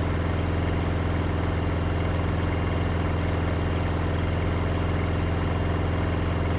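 Renegade Spirit ultralight biplane's engine and propeller running steadily at low power while taxiing on grass, an even drone that holds the same pitch throughout.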